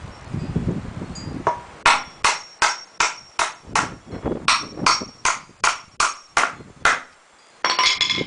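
Hammer driving nails into pallet wood: about a dozen quick, sharp strikes, a little under three a second, in two runs with a short pause between. A brief metallic clatter follows near the end.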